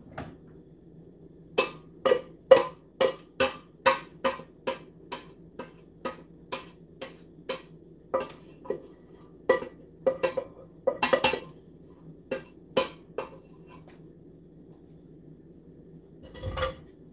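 Spatula knocking and clicking against a ceramic baking dish as buffalo chicken dip is worked into it: a string of sharp knocks, about two a second, thinning out after about 13 seconds, then a duller thump near the end.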